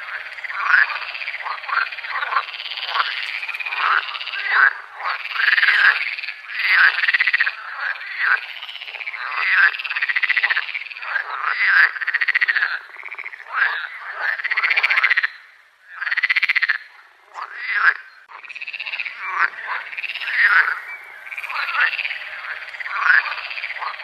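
A chorus of frogs, many overlapping calls that rise and fall in pitch, with a brief lull about sixteen seconds in.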